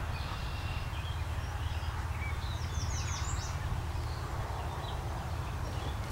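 Outdoor riverside ambience: a steady low rumble with small birds chirping over it, including a quick run of about five high down-slurred notes about three seconds in.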